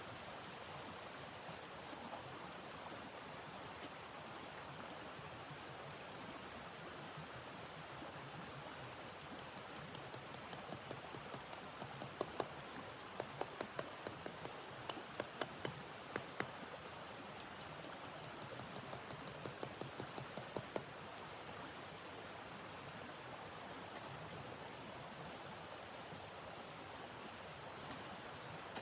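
Steady snowstorm wind noise. Through the middle there is a run of irregular sharp clicks and crackles, at their densest for about ten seconds.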